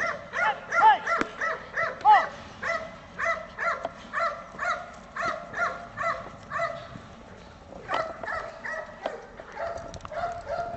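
Dog barking over and over, about two short, high, yipping barks a second, then a short pause and a few fainter barks near the end.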